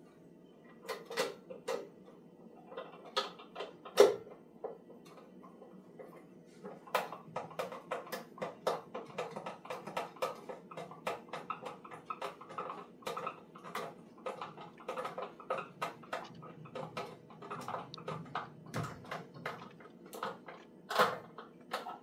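Hand screwdriver driving short screws into the plastic housing of a camera bird feeder: a run of small, irregular clicks and creaks, with a louder knock about four seconds in and another near the end.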